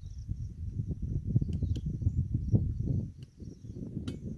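Outdoor background: wind buffeting the microphone as an uneven low rumble, with a steady high insect drone and a few faint clicks.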